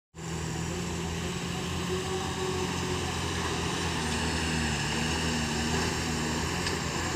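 Diesel engine of a Tata dump truck running with a steady drone as the truck drives slowly over dirt ground.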